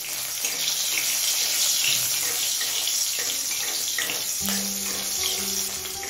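Slit green chillies sizzling in hot mustard oil in a kadai, a dense steady hiss with crackling.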